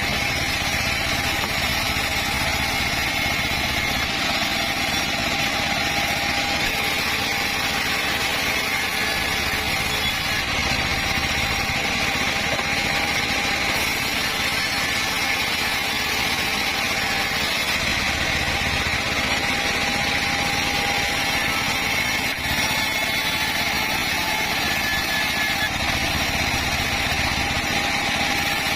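Circular saw running steadily while cutting teak wood, a constant loud whine with a low rumble that swells and fades several times.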